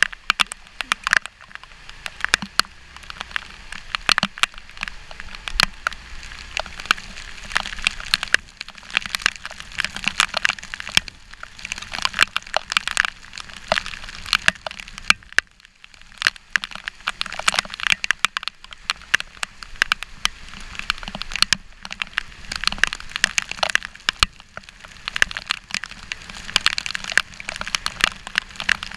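Raindrops striking a GoPro's housing: a dense, irregular patter of sharp taps and cracks, easing briefly about halfway through, over a faint low hum.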